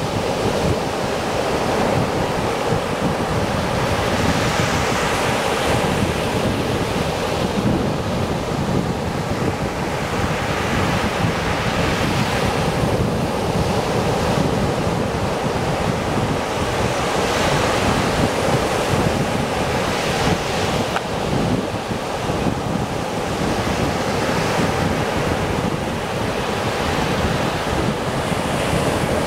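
Gentle surf washing up the sand, swelling every few seconds as each wave comes in. Wind rumbles on the microphone throughout.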